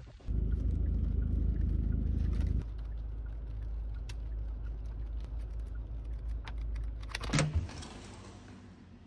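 Steady low rumble of a moving car's cabin, dropping in level about two and a half seconds in. Over it come light rustles and clicks of paper pages being leafed through, and a short louder clatter near the end.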